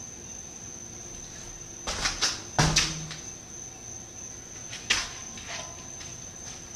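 Feet thudding and slapping on a walkway floor during a gymnastics aerial attempt: a few loud steps about two seconds in and one sharp landing thud about five seconds in. A steady high whine runs underneath.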